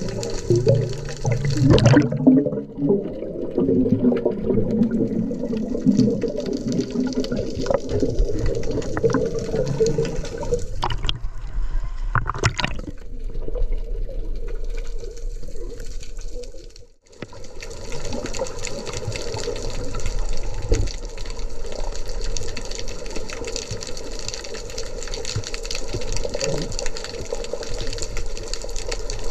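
Water rushing and bubbling, heard through an underwater camera's microphone, with heavier bubbling in the first two seconds.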